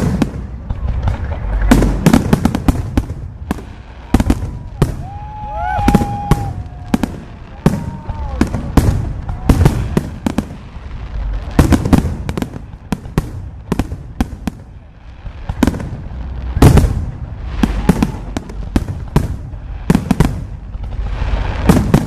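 Fireworks display: a continuous barrage of bangs and crackles, several loud reports every second, with a few short whistling glides around the middle.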